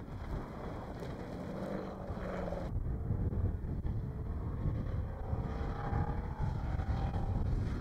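Off-road race car's engine revving and easing off as it drives over a dirt track, its note rising and falling, under heavy wind buffeting on the microphone. The sound changes abruptly about a third of the way through.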